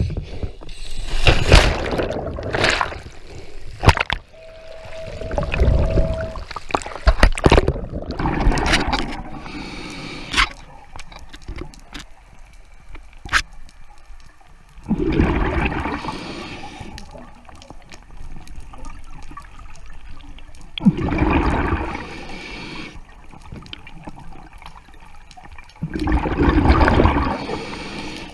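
A diver splashes into the sea from a boat, heard through an underwater camera, with bubbling and knocks. Then the camera is underwater, with bursts of bubbling about every five to six seconds, typical of a diver's exhaled breath.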